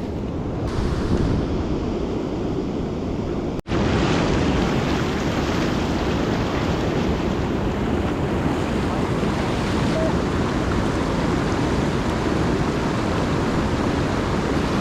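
Steady rushing of water from a waterfall or fast stream. The sound cuts out for a moment about three and a half seconds in, then resumes slightly louder.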